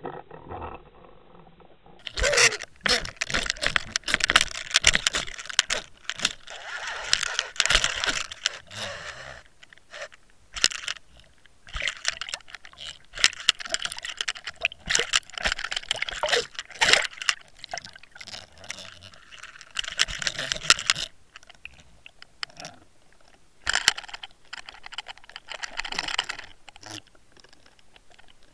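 Water rushing and clicking around a line-mounted underwater camera as the lure is reeled in, in irregular bursts with short pauses. It becomes loud about two seconds in.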